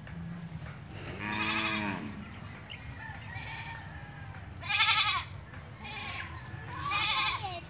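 Goat bleating three times, a couple of seconds apart, the middle bleat loudest.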